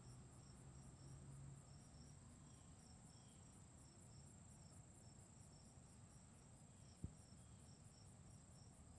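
Faint outdoor insect song: a steady high-pitched trill with soft chirps pulsing over it about four times a second. A single faint click sounds about seven seconds in.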